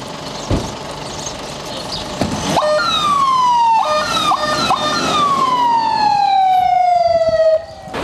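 Electronic siren on a forest-fire response pickup truck. Under an idling engine there is a knock about half a second in, then the siren starts near three seconds in: a falling wail, a few quick switches between a high and a low tone, then a long falling wail that cuts off suddenly shortly before the end.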